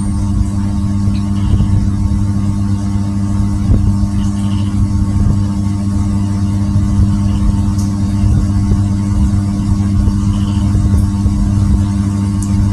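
Steady low machine hum, unchanging in pitch and loudness, with a few faint light taps.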